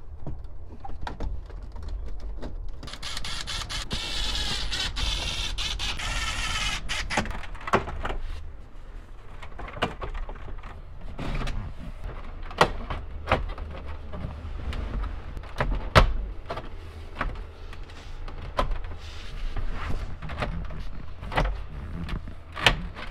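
Plastic dash trim and a double-DIN radio being fitted into a truck dash: a run of sharp clicks and knocks as the pieces are pushed and snapped into place, with a few seconds of harsher, higher-pitched noise about three seconds in.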